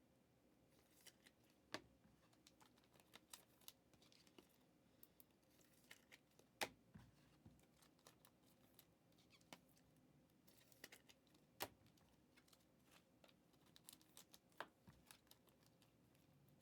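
Faint, scattered clicks and light handling noise from trading cards being shuffled and sorted by hand, with a few sharper taps.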